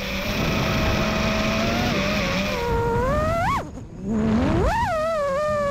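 FPV quadcopter's four brushless motors (iFlight Xing 2207.5 1777kv) whining steadily over a low rush of air. A little over three seconds in, the pitch shoots sharply up, then falls away almost to nothing for about half a second as the throttle is cut during a roll. The whine then climbs back up and settles.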